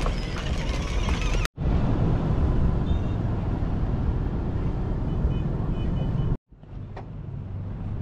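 Steady outdoor rumble, mostly wind buffeting the microphone, broken twice by brief dead silences where the footage cuts.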